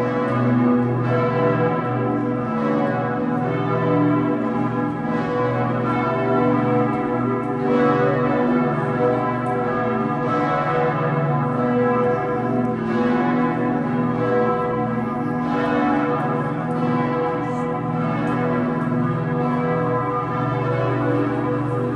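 Church bells pealing: several bells struck over and over, their tones ringing on into each other.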